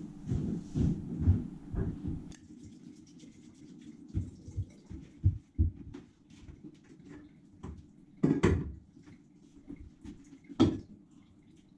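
Milk glugging in rhythmic pulses as it pours from a plastic jug into a tall glass for about the first two seconds. Then a spoon stirring in the glass, with small clicks and two sharper clinks of the spoon against the glass near the end.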